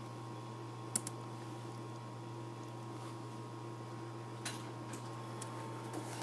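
A few sharp clicks at a computer, a quick double click about a second in and several more scattered near the end, over a steady low electrical hum.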